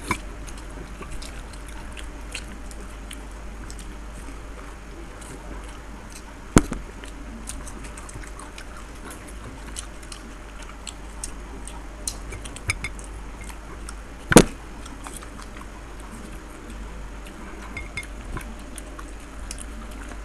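Eating sounds of panipuri (fuchka): fingers cracking crisp puri shells, puris dipped into glass bowls of pani, and chewing, with many small clicks and clinks. Two much louder sharp clicks come about six and a half and fourteen seconds in.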